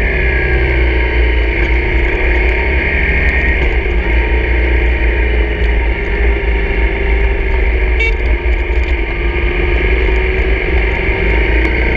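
Honda CRF250's single-cylinder four-stroke engine running steadily under way, its pitch drifting gently with throttle, with heavy wind rumble on the camera microphone.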